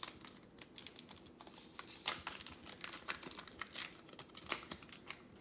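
Wrapper of an NBA Hoops trading-card pack crinkling and tearing as it is opened by hand, a faint run of irregular crackles.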